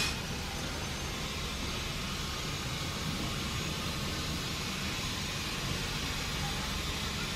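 Steady low rumbling background noise with an even hiss and no distinct events.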